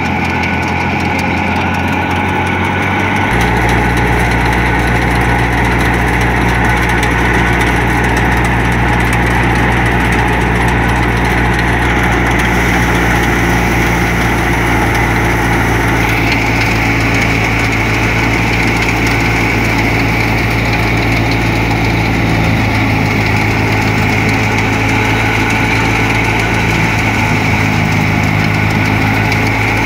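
Wheat thresher driven by a Ghazi 65 hp tractor running steadily while wheat sheaves are fed into it: the tractor's diesel engine drone mixed with the thresher's spinning drum, belts and fan. About three seconds in the low drone grows louder and then holds steady.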